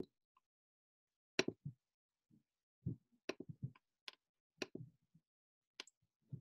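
Irregular clicks and soft thuds from someone working a laptop and its keys or mouse at a desk: about a dozen short taps spread unevenly, with dead silence between them.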